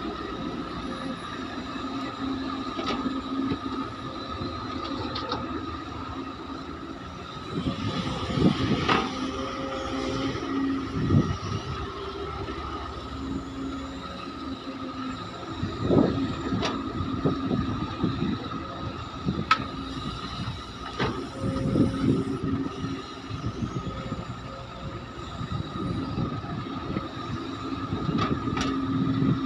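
CASE hydraulic excavator's diesel engine running with a steady hydraulic whine, broken by several loud thuds and clanks as it loads ore into a dump truck, heaviest about a third of the way in, around the middle and near the end.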